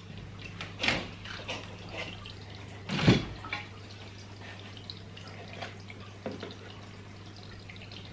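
Glass terrarium front doors being opened, with a click near the start and a louder knock about three seconds in, then faint dripping and sloshing of water as a plastic cup is dipped into the tank to scoop out shrimps.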